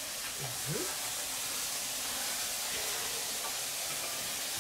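Steady sizzling hiss of burger patties frying on a steel fire plate.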